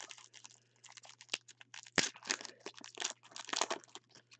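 Foil wrapper of a Panini Luminance football card pack being torn open and crinkled by gloved hands: a run of irregular crackles, with the sharpest tear about two seconds in.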